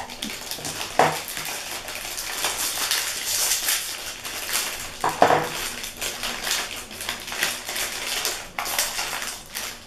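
Plastic candy wrappers crinkling and crackling as Pelón Pelonetas tamarind lollipops are unwrapped by hand.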